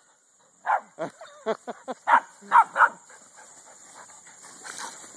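Small puppy yapping: a quick run of about eight short, high barks in the first three seconds, then only faint sounds.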